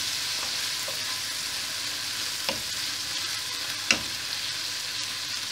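Tomatoes, onion, dried anchovies and sweet soy sauce sizzling steadily in a frying pan while a wooden spoon stirs them. Two sharp knocks of the spoon against the pan come midway, the second and louder one about four seconds in.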